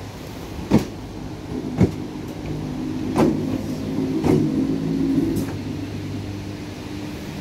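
ScotRail electric multiple unit moving slowly along the platform: the hum of its traction motors, in several steady tones, comes in about a second and a half in and grows, with sharp clunks about once a second from the wheels over the track.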